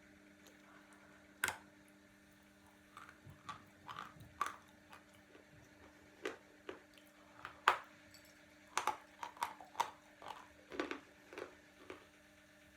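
Khrapovsky chalk being bitten and chewed: irregular crisp crunches, one sharp loud crunch about a second and a half in, then crunching in clusters that grow denser in the second half.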